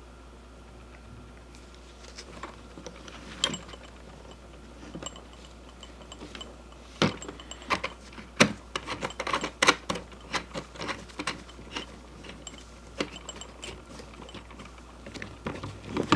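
Irregular light clicks and knocks of small hard objects being handled, coming thick and fast in the middle, over a low steady hum.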